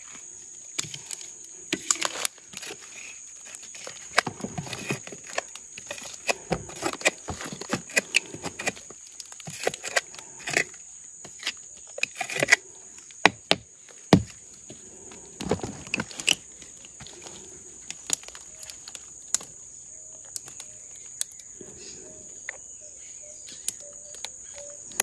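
A blade chopping and scraping into the soft, fibrous heart of a felled palm trunk, hollowing out the cavity where the sap for palm wine collects. It comes as irregular knocks and scrapes, dense at first and sparser in the last third, over a steady high shrill of insects.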